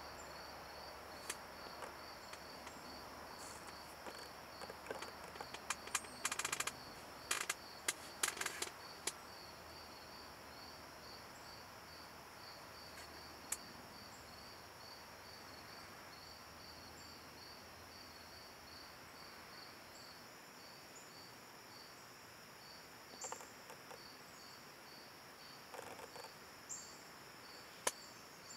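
Insect chorus pulsing steadily at about two to three pulses a second. A cluster of sharp clicks and knocks about six to nine seconds in is the loudest thing, and a few short high chirps come near the end.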